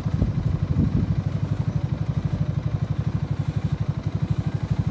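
ATV engine idling close by, a steady, even chugging of about a dozen beats a second.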